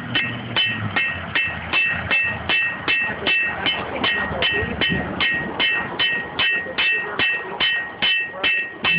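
Blacksmith's hammer striking iron on an anvil in a steady rhythm, about two and a half blows a second, each blow with a short high ring.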